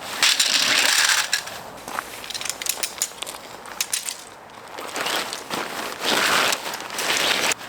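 Bursts of crunching and rustling, with scattered sharp clicks between them.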